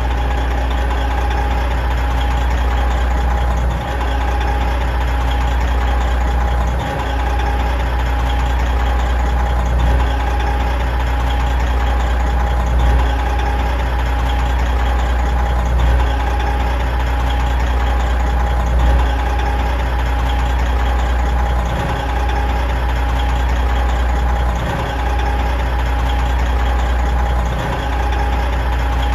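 Big truck diesel engine idling steadily with a deep low rumble and a faint steady whine, its level swelling slightly about every three seconds.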